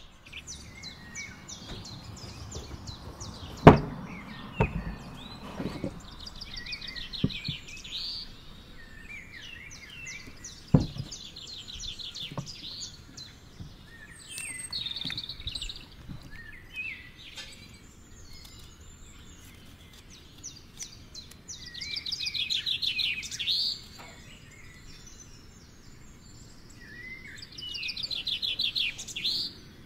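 Songbirds chirping and singing fast, high trills, in several bursts that are loudest near the middle-to-late part and near the end. A few sharp knocks stand out early on, the loudest a few seconds in.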